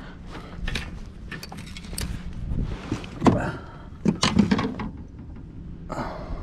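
Knocks and clatter of a fishing rod, reel and landing net against a plastic fishing kayak as a fish is reeled in and netted, with the loudest knocks a little past the middle, over a steady low rumble.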